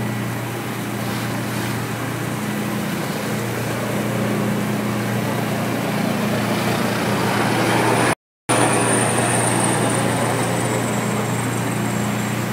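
A boat's engine running with a steady low drone over the rush of water along the hull. The sound cuts out completely for a moment about eight seconds in, and a faint high whine follows.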